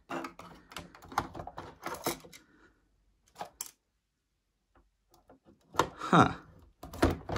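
Plastic clicking and rattling as the body shell of a model SD70MAC diesel locomotive is unclipped and lifted off its chassis, many quick clicks at first, then a pause. A louder sound with falling pitch comes about six seconds in, followed by a sharp knock near the end.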